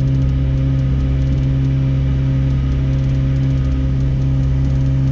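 McLaren 765LT's twin-turbo V8 running at a steady, held 2000 rpm, heard from inside the cabin. The car's oil-level check holds this speed automatically to bring the oil up to temperature before it reads the level.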